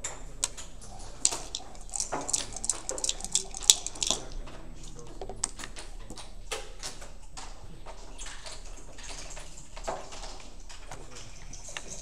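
A flurry of sharp clicks from backgammon dice and checkers knocking on the board, followed by a few single clicks about halfway through and again near the end.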